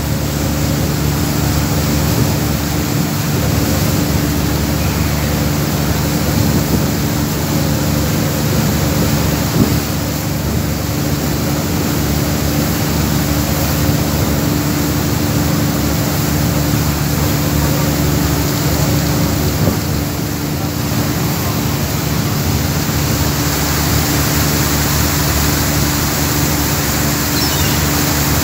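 Passenger ferry's diesel engine running with a steady low drone, over the constant rush of water along the hull.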